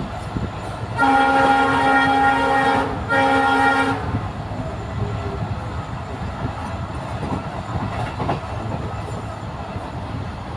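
Indian Railways train horn sounding two blasts, a long one of about two seconds and then a short one. Under and after them runs the steady rumble and 'tadak, tadak' clickety-clack of ICF coaches' wheels over the rail joints.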